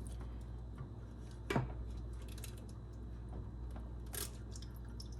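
Light clicks and taps of hand tools and engine parts being handled, two sharper taps about a second and a half in and near the end, over a steady low hum.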